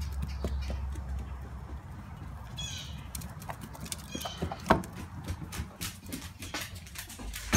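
Dog claws clicking and pattering on a hardwood floor as the dogs move about, with scattered sharp clicks and one louder knock.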